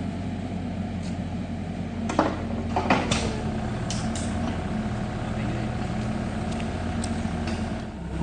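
Excavator diesel engine running steadily, with a few sharp metallic knocks about two, three and four seconds in.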